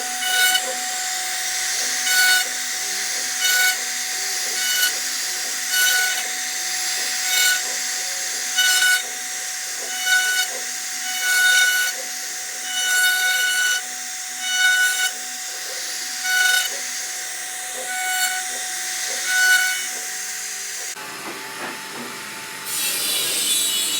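CNC router spindle running and cutting wood with a steady whine and hiss, getting louder about every second and a half as the bit sweeps back and forth through the carving passes. The sound changes near the end.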